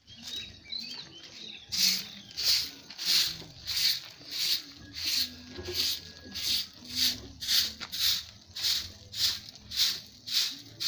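Short handheld bristle broom sweeping bare dirt ground in steady, rhythmic strokes, about one and a half swishes a second, starting about two seconds in.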